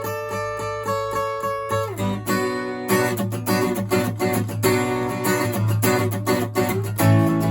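Solid-wood Bulldog D-4 acoustic guitar with Ernie Ball Rock & Blues 10/52 strings, with a dry sound. It plays evenly picked notes over a ringing chord for about two seconds, then moves into quick rhythmic strummed chords.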